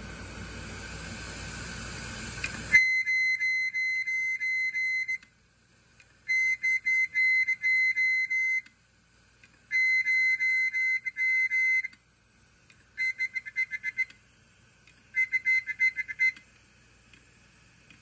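Failing Seagate 1TB hard drive, running with its lid off, chirping and whistling: a rushing noise for the first few seconds cuts off suddenly, then five bursts of a high, rapidly pulsing whistle, each one to two and a half seconds long with short silences between, like a Morse code message. The owner reckons the bearings are shot.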